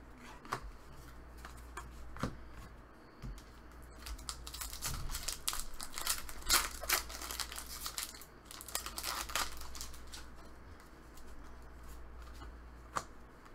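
Foil trading-card pack being torn open and its wrapper crinkled: a dense crackle for several seconds in the middle, with scattered clicks of the cards being handled around it.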